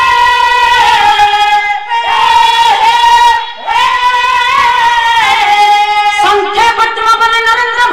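A woman singing an Odia folk devotional song in a high voice, holding long, wavering notes that slide in pitch, in phrases broken by short breaths.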